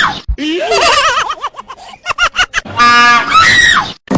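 A startled person shrieks and then breaks into short bursts of laughter. About three seconds in, a loud train horn blast plays for about a second and ends in a falling cry.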